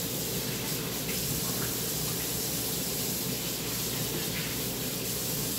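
Kitchen faucet running steadily into the sink as hands are washed under it.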